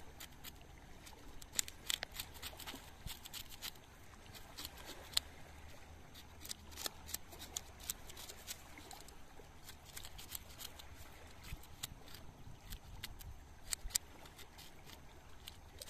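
Kitchen knife scraping the scales off a small fish held in the hand: a quick, irregular run of rasping scrapes and clicks.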